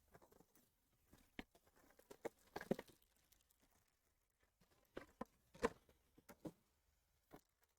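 Near silence with scattered faint clicks, taps and short rustles of a trading-card hobby box and its packs being handled and opened. They come in small clusters about two seconds in, again around five to six and a half seconds, and once near the end.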